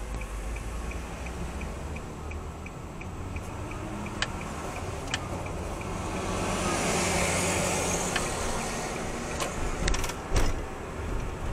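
Car interior as picked up by a dashcam microphone: the turn-signal indicator ticks evenly, about three ticks a second, over the running engine and road noise while the car turns, stopping about five seconds in. The engine and tyre noise then rise as the car pulls away, with two sharp thumps about ten seconds in.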